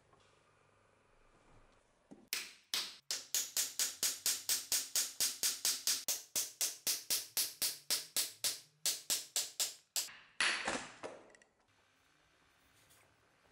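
Rapid, even hammer blows, about four a second for some eight seconds, knocking the old wooden handle stub out of a rusty axe head's eye. A short burst of scraping noise follows just after the blows stop.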